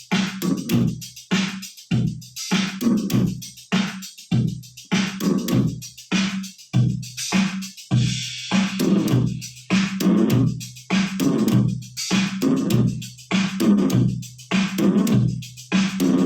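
Electric bass played funk-style through a Zoom GM-200 multi-effects unit: a repeating pattern of short, sharply attacked low notes, several a second, with a machine-like beat.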